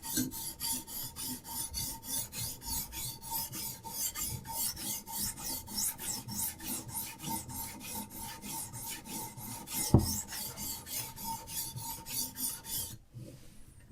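Diamond sharpening stone on a Hapstone RS guided sharpening system rasping back and forth along a knife's edge in quick, even strokes, about four a second, stopping shortly before the end. A single sharp knock about ten seconds in.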